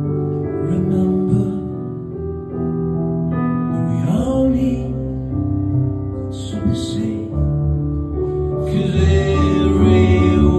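Live band playing a slow song: sustained keyboard chords with a man singing over them.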